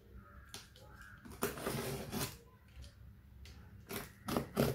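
Utility knife slicing through the tape and wrapping of a cardboard parcel, in scraping strokes with rustling of the package: one longer cut in the middle and several quick short strokes near the end.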